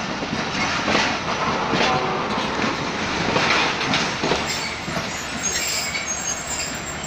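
Pakistan Railways express passenger coaches rolling slowly past, their steel wheels clacking unevenly over rail joints. A faint high-pitched wheel squeal sets in near the end.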